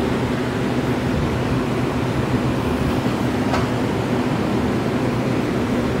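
Walk-in freezer evaporator fans running steadily: a constant whir of moving air over a low hum, with one faint tick about halfway through.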